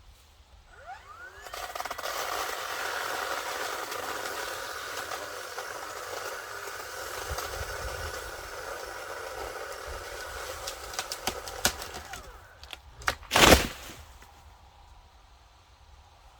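40V Black & Decker battery chainsaw's electric motor spinning up with a rising whine, running steadily through a cut for about eleven seconds, then winding down. A few sharp cracks and a loud, heavy thump follow near the end.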